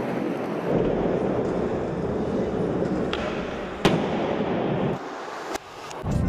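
Skateboard wheels rolling over a hard surface, with a few sharp clacks of the board, the loudest about four seconds in. The rolling briefly drops away near the end.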